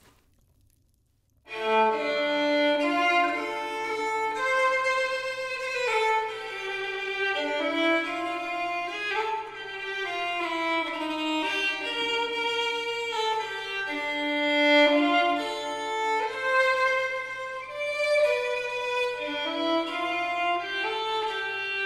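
Fiddle playing a melody over a steady low drone, starting after about a second and a half of near silence.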